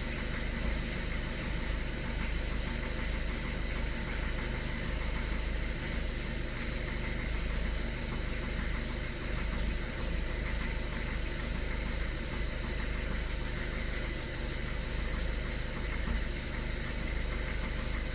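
Skoda Octavia A7's 1.6 TDI four-cylinder diesel idling steadily while cold, with the cold-engine knock it has until it warms up; once warm the knock goes away.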